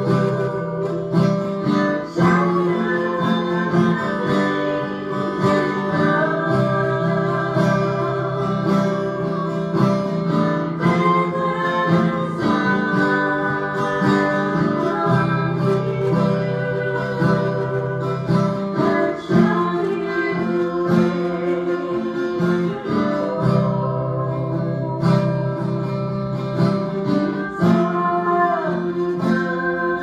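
Acoustic guitar strummed in steady chords, with women singing a song along with it.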